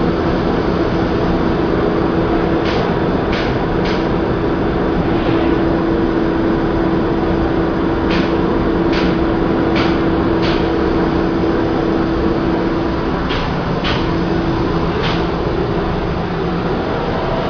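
CNC cutting machine running: a steady machine hum with a held tone, over which short ticks come in small groups of two to four.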